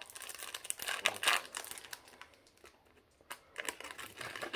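Crinkling and small clicks of a foil Pokémon booster pack and its cards being handled, with a short quiet gap about halfway through.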